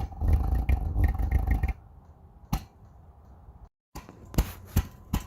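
Overprimed Chinese diesel heater backfiring: a loud rumbling burst of about two seconds from the flooded combustion chamber. It is followed by a single knock, then a quick run of sharp knocks and pops.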